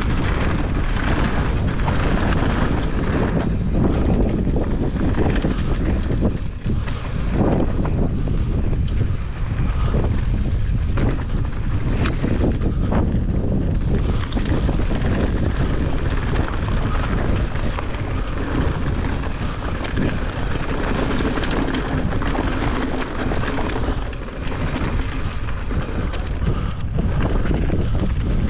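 Wind buffeting the microphone of a mountain bike riding fast downhill, with the tyres crunching over loose stones and the bike knocking and rattling over rocks and bumps.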